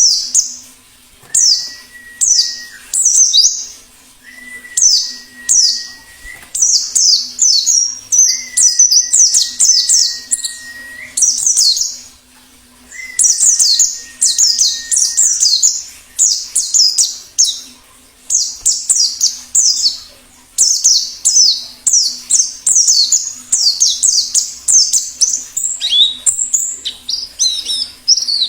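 Wild white-eyes (pleci) singing: rapid phrases of high, thin, downward-sweeping chirps, broken by short pauses. A flat whistle-like tone sounds four times in the first half, each about two seconds long.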